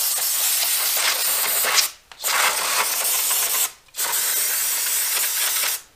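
Aerosol cleaner spray can hissing in three long blasts, cut by two short pauses about two and four seconds in, as oily grime is sprayed off a small engine.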